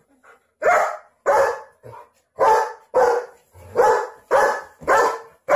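German shepherd barking repeatedly, a run of about nine loud barks roughly every half second.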